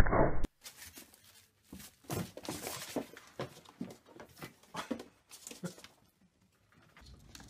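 A pet ferret scrabbling about inside a plastic swing-lid trash bin: irregular scratching, knocks and rustles against the plastic, dying away near the end. It opens with a short loud noise that cuts off abruptly.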